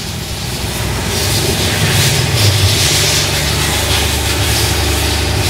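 A steady low mechanical drone with a hiss over it, building slightly over the first two seconds.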